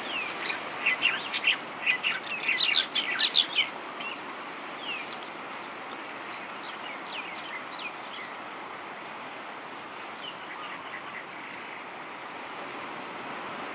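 Birds chirping: a cluster of quick, short falling chirps in the first few seconds, then scattered calls, over a steady wash of surf.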